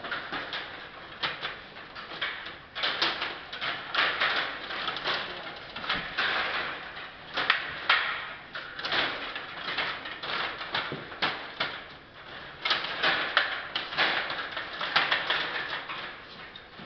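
Stiga rod table hockey game in play: steel control rods sliding and twisting in the plastic rink, plastic players spinning and the puck knocking about, in a dense, irregular clatter of sharp clicks and knocks.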